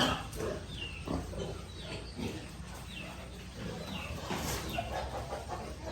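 Piglets grunting and squeaking, with short high falling squeaks about once a second.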